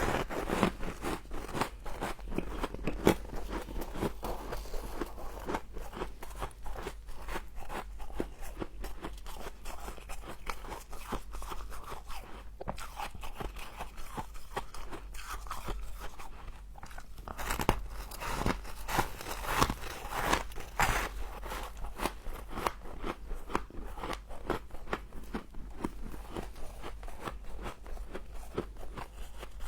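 Close-miked crunching and chewing of frozen frost: a dense run of sharp crackly crunches, with louder bursts of biting near the start and again about two-thirds of the way through, over a low steady hum.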